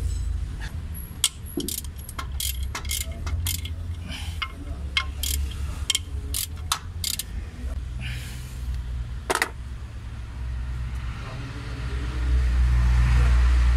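Metal hand tools clinking against the engine in a run of sharp clicks while the timing belt tensioner is loosened. Near the end a louder rasping as the toothed timing belt is worked off its sprockets, over a steady low hum.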